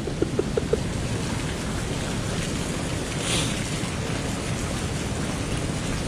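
Steady rush of sea surf on the shore, mixed with wind on the microphone; the surf swells a little louder about three seconds in.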